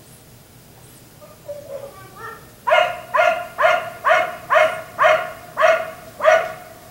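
Black Labrador retriever barking: a few softer yelps, then a run of eight evenly spaced barks, about two a second.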